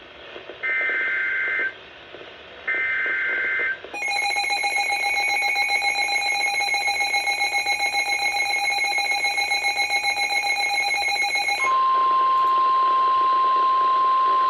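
Emergency Alert System tones. First come two SAME header data bursts, about a second each, a second apart, with a shrill chirping sound. Then a harsh, buzzy attention tone with a fast pulsing ripple runs for about seven and a half seconds. It gives way to a steady single tone near 1 kHz, the Weather Service warning tone, for about three seconds.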